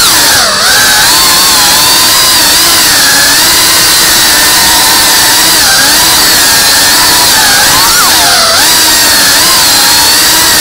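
FPV quadcopter's brushless motors whining loudly over a buzzing hiss, the pitch wavering constantly with the throttle. It drops sharply for a moment about half a second in and again around eight and a half seconds in.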